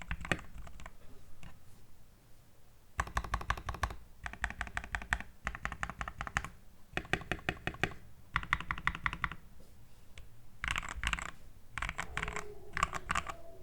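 Royal Kludge RK71 mechanical keyboard with lubed Gateron Red linear switches, tape-modded and foam-filled, being typed on in quick bursts of keystrokes with short pauses between them.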